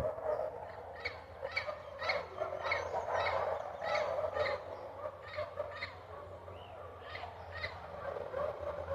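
Parrot squawking: a run of about a dozen short, harsh calls, roughly two a second, with a brief pause a little past the middle.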